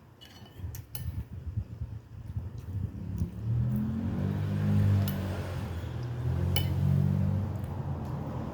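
A few light clinks of tableware, then a low engine-like drone from about three seconds in that swells and eases twice, like a motor vehicle passing.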